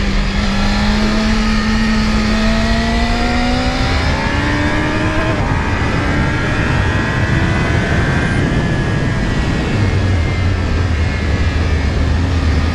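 Yamaha R6's inline-four engine running hard under load. Its note climbs over the first five seconds or so as the bike accelerates, then holds fairly steady, over heavy wind noise.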